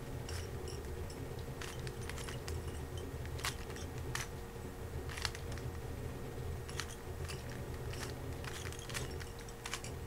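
A 3x3 speed cube being turned rapidly by hand: a quick, irregular run of plastic clicks and clacks as the layers snap round, several a second, over a steady low hum.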